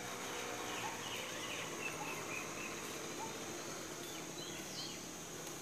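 Steady high insect drone, with small birds chirping in short twittering notes over it.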